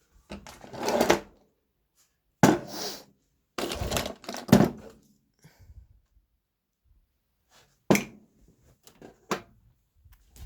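Several separate bursts of clattering and rustling, as of parts or tools being handled and moved about, with a short sharp knock near the end.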